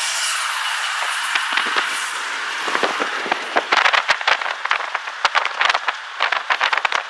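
Road and wind noise inside a moving car pacing a freight train: a steady hiss that, about three seconds in, breaks into a rapid, irregular crackle.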